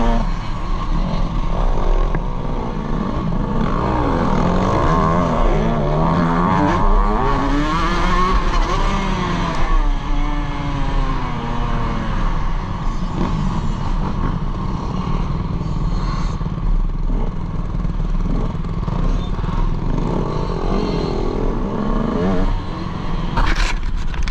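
Motocross dirt bike engine heard from the rider's helmet, revving up and down as the throttle opens and closes through the corners. A few sharp knocks near the end.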